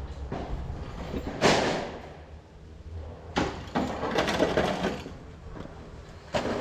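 Intermittent bumps, scrapes and clatter from a stucco crew handling scaffolding and equipment, over a steady low rumble.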